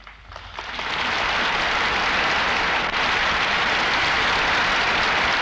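A large hall audience applauding. The clapping swells up over about the first second and then carries on steadily as a dense wash of many hands.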